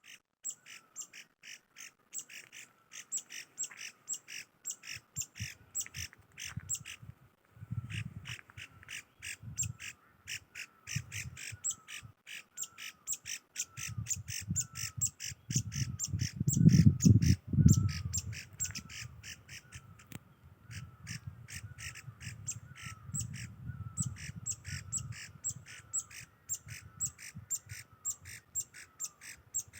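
A bird calling over and over in a fast, steady series of short, harsh calls, about three a second, with a couple of brief pauses. Under it there is an uneven low rumble, loudest about halfway through.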